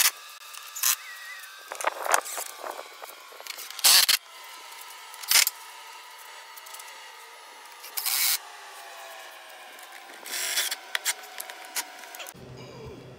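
Cordless drill-driver running in a string of short bursts as it drives the cowling bolts back into an outboard motor's lower cowling, with clicks and knocks of the panel being handled in between.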